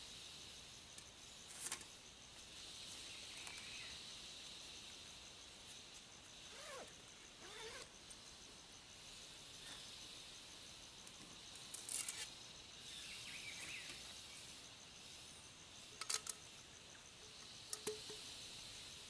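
A steady high hum of forest insects, with a few light metallic clicks and knocks from a camping pot set being unpacked and set down; the loudest are a pair of clicks about sixteen seconds in. Two short gliding calls come about seven seconds in.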